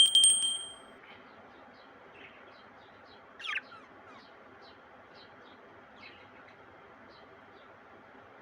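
Small Australian parrots chirping with short, scattered calls, one louder call about three and a half seconds in, over a low steady hiss. A loud, high ringing tone that fades within the first second opens it.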